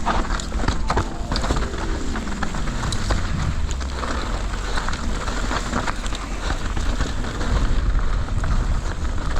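Mountain bike ridden fast down a dirt trail: wind buffeting the helmet-camera microphone over the rattle and crunch of tyres and bike on rough ground. A tone falls in pitch about two seconds in.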